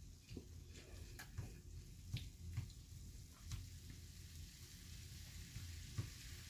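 Faint sizzling of ground turkey and cabbage in a skillet, with a few soft scrapes and ticks as a silicone spatula stirs it.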